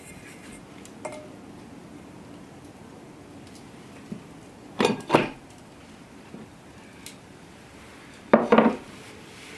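Pie pan and metal plate knocking and clattering against each other and on a wooden table as a pie is turned out: two knocks about halfway through, then a louder clatter near the end.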